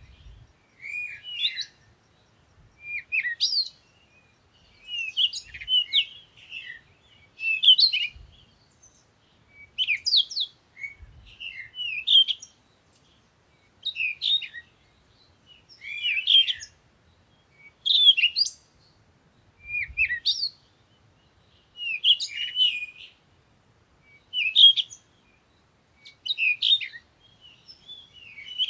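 A songbird singing short, quick phrases of chirps and whistles, one phrase about every two seconds with brief pauses between.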